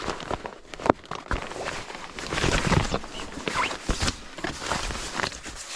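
Rustling of tent fabric and camping gear being handled, with scattered clicks and knocks as the tent is adjusted.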